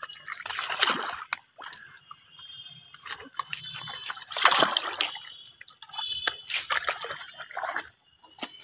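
Wet splashing and slapping of live fish thrashing in a wet fishing net as they are picked out by hand, in about three loud bursts with smaller splashes between.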